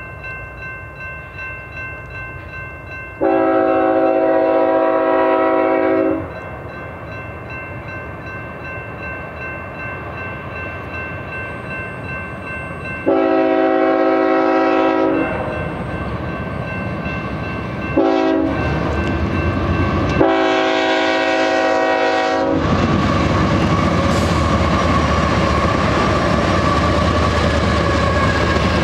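A Union Pacific GE ES44AC (C45ACCTE) freight locomotive's multi-chime air horn sounding the long, long, short, long grade-crossing signal as the train nears a crossing. After the last blast the locomotives and double-stack container cars pass close by with a loud, steady rumble of wheels on rail.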